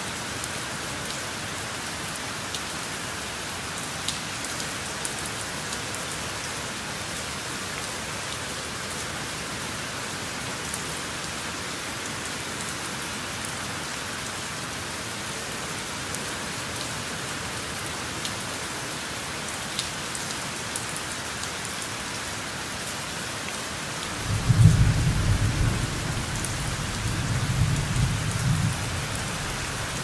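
Steady rain hiss. About 24 seconds in, a low roll of thunder swells, eases and swells again, then fades after about five seconds; it is the loudest sound.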